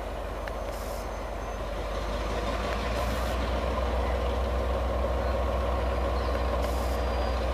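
Sri Lanka Railways M2A class diesel locomotive No. 591 'Manitoba' running with a steady low engine hum and rumble, which grows louder about two seconds in and then holds.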